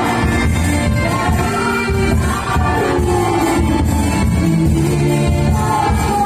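Loud disco dance music in the Filipino live-band medley style: a singer's voice over a steady, driving low beat.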